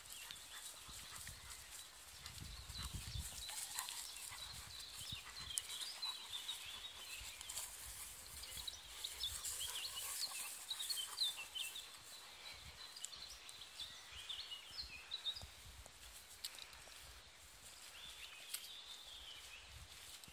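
Labrador retrievers moving through long grass: rustling and a dog panting close by, with small birds chirping. A low rumble, likely wind on the microphone, comes about two to four seconds in.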